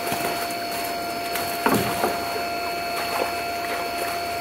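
A few hollow knocks and some clatter as a fish dip net is handled against the wooden rim of a hatchery holding tank, the loudest about two seconds in. Under them runs a steady mechanical hum with a thin high whine.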